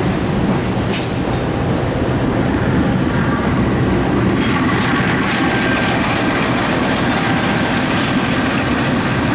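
Diesel-electric locomotive running past on the track below, its engine rumbling over steady road-traffic noise, louder about halfway through as it draws near.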